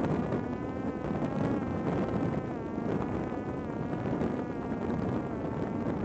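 Buzzing whine from a Parrot Disco's electric motor and propeller over a steady rush of wind. The whine wavers slowly up and down in pitch and fades near the end.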